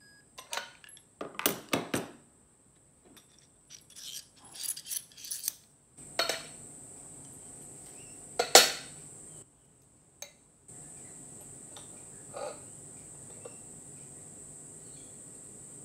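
Steel and titanium motorcycle axles clinking and knocking against each other and the glass top of a digital scale as they are lifted off and set down, in a series of irregular clicks and clanks, the loudest a little past halfway.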